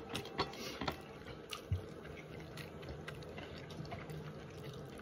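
Eating by hand: fingers working food on a plate and wet mouth clicks from chewing. There is a cluster of short clicks in the first second and a soft thud a little later, over a faint steady low hum.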